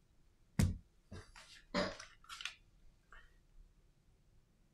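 A smartphone set down on a silicone repair mat with a single knock, followed by a couple of seconds of rustling as the phone and its charging cables are handled.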